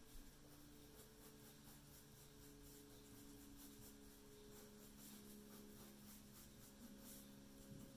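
Near silence: faint scratching of a mechanical pencil drawing on paper over a faint steady low hum.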